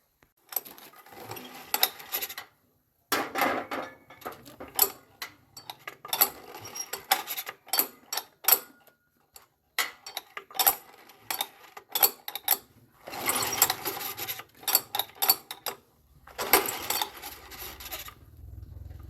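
Hand-tool work on metal tiller parts: spells of scraping and rubbing mixed with sharp clicks and taps, broken by short pauses. A low hum comes in near the end.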